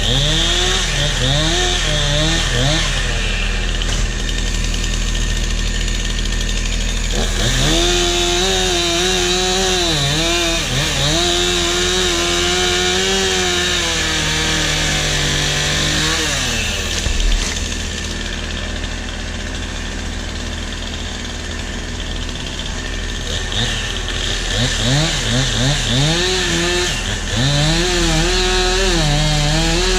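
Two-stroke chainsaw cutting wood, its engine revving up and dropping back again and again under the cut. It eases off for a few seconds past the middle, then revs back up in quick blips.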